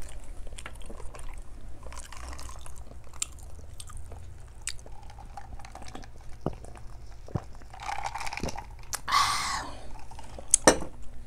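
Close-up chewing and wet mouth sounds of a person eating rice and fish stew by hand, with many small clicks. A louder, breathy stretch comes about eight to ten seconds in, while she drinks from a plastic cup.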